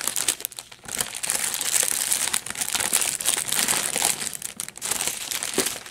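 Clear plastic bag and small plastic packets of diamond-painting drills crinkling as hands rummage through them, a continuous crackly rustle with a brief lull just under a second in.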